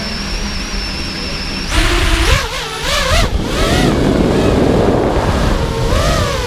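Onboard audio of a 5-inch FPV racing quadcopter with brushless motors and three-blade props, heard from a camera mounted on the quad. The motors spin at idle with a steady high whine, then about two seconds in they throttle up to a loud rush of propeller wash whose pitch wavers up and down as the throttle changes.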